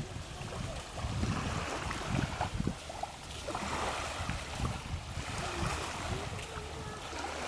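Wind buffeting the microphone over small waves washing on a sandy shore.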